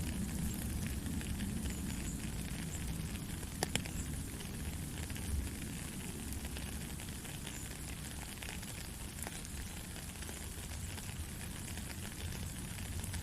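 Steady rain pattering: an even hiss of many small drop ticks over a low rumble, with a couple of sharper ticks a few seconds in.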